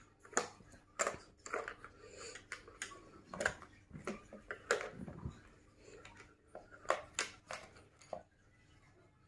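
Irregular plastic clicks and taps as a toddler handles a plastic pencil box and its pencils, the box and pencils knocking against each other and the table.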